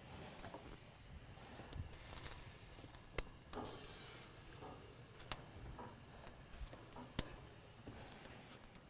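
Bell peppers sizzling faintly on a hot barbecue grill, with a few sharp clicks of metal tongs against the peppers and grate as they are turned.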